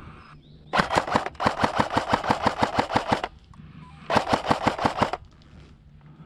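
Airsoft rifle firing three full-auto bursts of rapid shots, about ten a second: a short burst about a second in, a longer one of about two seconds, and another of about a second about four seconds in.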